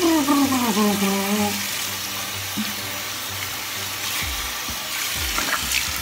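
Bathroom sink tap running steadily, with water splashed onto a face by hand: a rinsing hiss and several dull splashes from about four seconds in. A short falling vocal sound from the person rinsing comes in the first second and a half.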